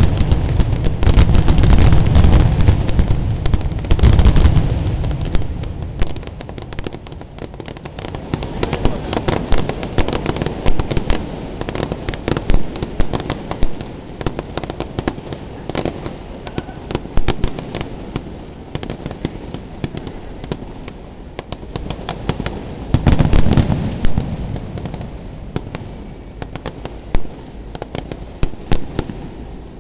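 Aerial fireworks bursting: a rapid run of heavy booms in the first few seconds, then dense crackling and pops. Another loud cluster of booms comes about three-quarters of the way through, and it thins to scattered crackles near the end.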